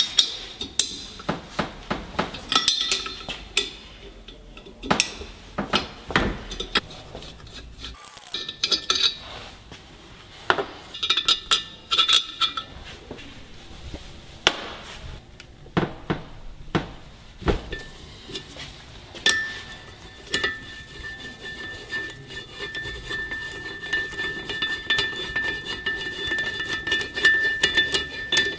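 Steel bolts and hand tools clinking and knocking against a billet aluminium engine case and a workbench as the case bolts are undone and the screws are set down, in separate irregular clicks. About two-thirds of the way through, a steady high tone joins in under the clicks.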